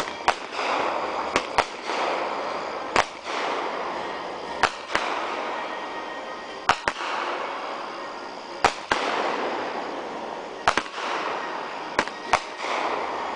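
Aerial firework shells bursting overhead in sharp bangs, often two in quick succession, every second or two. Each bang is trailed by a hiss that fades over about a second.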